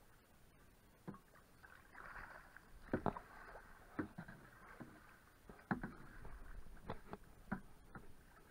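Canoe paddle strokes: the paddle dipping and splashing in the river, with sharp knocks every second or two over a light wash of moving water.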